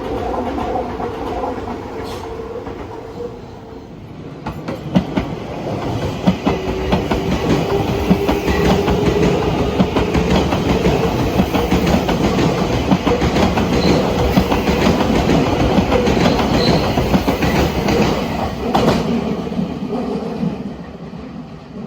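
Train running on rails, its wheels clacking over the rail joints. The sound grows louder about five seconds in and dies away near the end.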